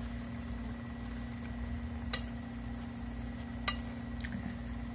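A metal spoon clinking sharply against a plate twice, about two and three and a half seconds in, with a fainter clink near the end, over a steady low hum.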